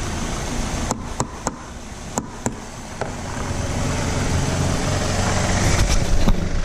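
Idling engine of a 2003 Toyota Corolla with about six sharp knocks over the first three seconds: a tool hitting the sticking AC compressor relay in the under-hood fuse box to bring the compressor on. After that the engine sound grows steadily louder.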